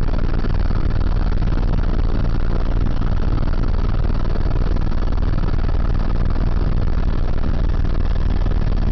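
Helicopter engine and rotor noise heard from inside the cabin: a loud, steady drone, heaviest in the low end, with a faint high whine above it.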